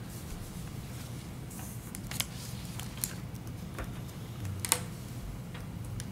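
Quiet meeting-room tone with a steady low hum, broken by a few sharp clicks and taps, the loudest nearly five seconds in.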